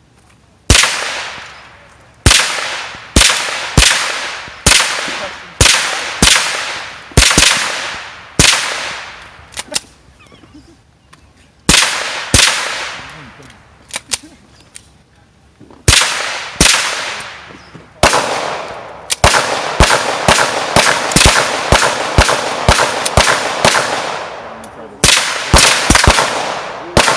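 A short-barrelled AR-style rifle firing dozens of single shots at a steady, quick pace, each shot ringing out with an echo. The shots come in several strings with short pauses, the fastest string running at about two shots a second in the middle.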